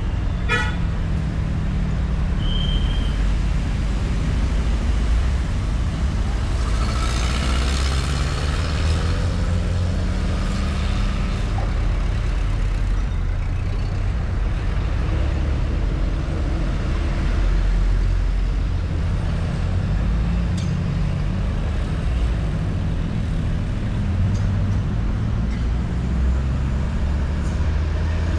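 Road traffic of cars and motorbikes passing, a steady rumble of engines and tyres on asphalt, with a short horn beep about three seconds in and a louder vehicle passing close by from about seven seconds.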